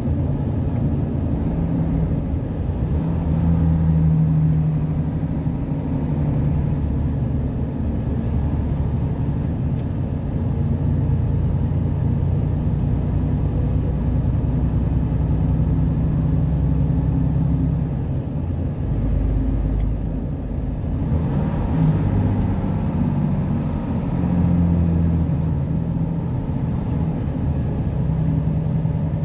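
Engine and road noise of a vehicle cruising on a highway, heard from inside the cab: a steady low drone that rises and falls a little, with a short dip about two-thirds of the way through.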